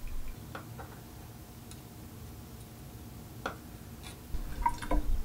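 A few light clicks and taps from handling small metal faucet valve parts, with a quick cluster of clicks and low knocks near the end.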